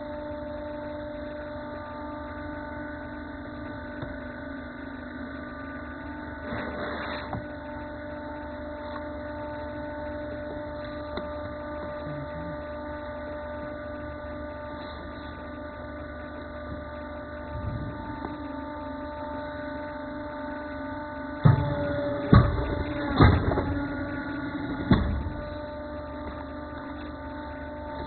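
Steady electric hum of a 30-ton cutting press running, with several pitches held together. About three quarters of the way through come four sharp, loud knocks in quick succession.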